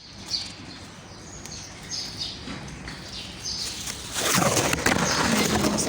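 Small birds chirping: short, high calls repeated every second or so. About four seconds in, a louder rough rushing noise takes over.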